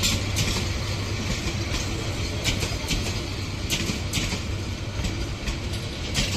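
Upakol Express passenger coaches rolling past on the rails: a steady rumble and hum, with sharp clicks every half second to a second.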